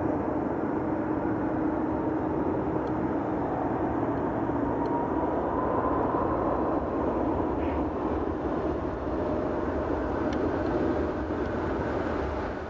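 Jet airliner engines running, a steady rumble with a low hum under it and a faint higher tone that drifts slightly in pitch.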